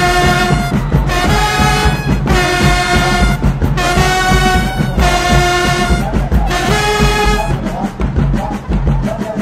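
Marching band playing a brass passage over heavy drums: short held brass chords in phrases of about a second, with the brass dropping out near the end.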